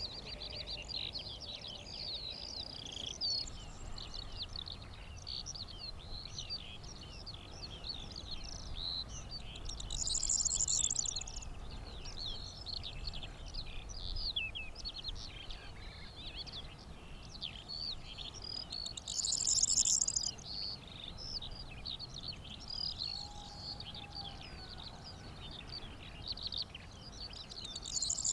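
Corn bunting singing its short, jangling, high song three times, roughly nine seconds apart, over a continuous twittering of skylark song.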